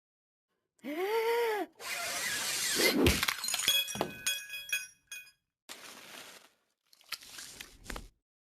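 A short cat meow that rises and falls, then a few seconds of clattering with a crash like breaking glass, sharp knocks and ringing pieces, followed by fainter rustling.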